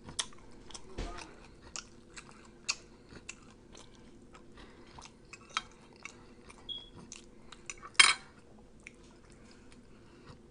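Close-miked chewing of T-bone steak, with wet mouth clicks and occasional clinks of cutlery on a plate. A sharp clack about eight seconds in is the loudest sound.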